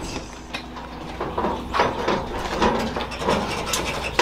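Scattered light knocks and clicks over a steady low hum.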